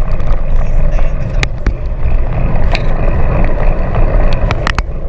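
Wind and road rumble on the microphone of a chest-mounted camera on a moving bicycle: a loud, steady low rumble, with a few sharp clicks, several close together near the end.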